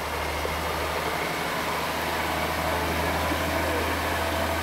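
Diesel engine of a road-rail Unimog running steadily as it drives past along the track, a little louder as it draws level.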